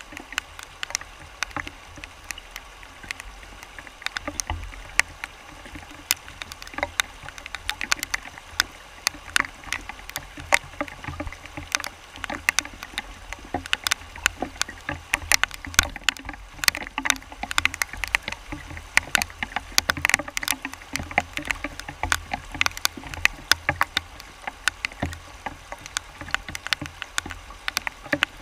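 River Lagan rapids rushing over rocks close to the microphone: a steady rushing with a low rumble, dotted with frequent irregular sharp splashes.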